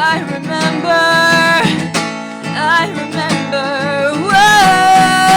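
A solo singer with acoustic guitar, sung live, moving into a long held note near the end.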